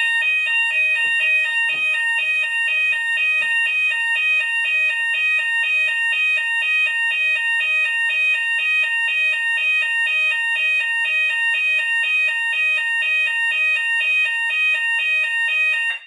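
Hochiki fire alarm sounders in alarm, including a YBO-BS sounder base: a loud continuous high tone with an alternating two-tone pattern over it, cutting off abruptly at the end.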